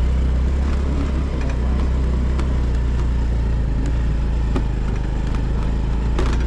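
Motor scooter running steadily as it is ridden, a continuous low rumble with a few faint clicks.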